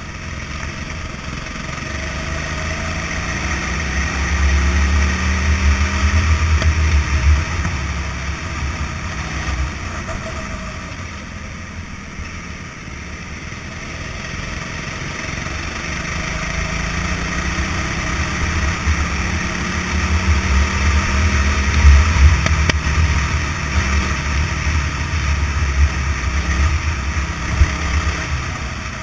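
Go-kart engine heard from the driver's seat through a helmet-mounted camera, climbing in pitch twice as the kart accelerates along the straights and dropping back as it slows for the bends, over a steady rush of wind noise.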